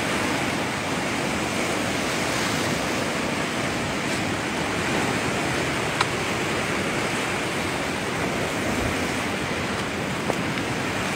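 Rough surf breaking against a rocky shore: a steady rushing wash of sea water, with some wind on the microphone.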